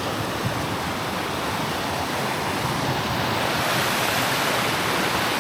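Steady rushing of water from small waterfalls and a stream, growing a little louder in the second half.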